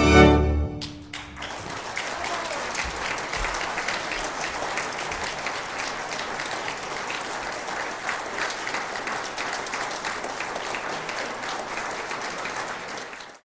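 A salon orchestra's final held chord of strings and winds ends under a second in, and an audience breaks into steady applause, which cuts off suddenly near the end.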